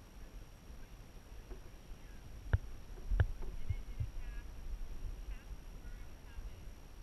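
Dragon boat being paddled: a steady low rumble with a few sharp knocks about midway, the loudest two close together, and faint bird chirps in the background.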